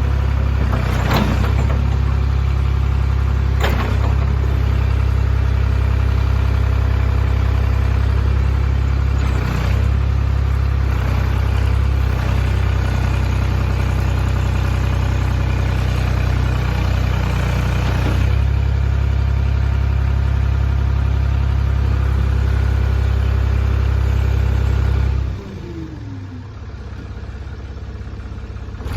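Ford 555B backhoe's diesel engine running steadily, with two short knocks about one and four seconds in. The engine sound falls suddenly much quieter about 25 seconds in.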